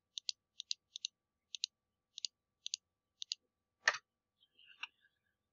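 A computer mouse clicking: light, sharp clicks in quick pairs, seven pairs in about three seconds, then one louder click a little before four seconds in.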